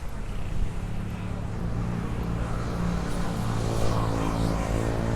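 Motor vehicle engine running, a steady low hum that grows stronger over the last couple of seconds.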